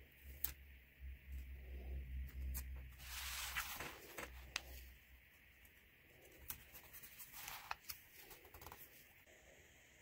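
Hands handling paper and tape on a journal page: soft paper rustling with scattered light clicks and taps. The loudest rustle comes about three to four seconds in.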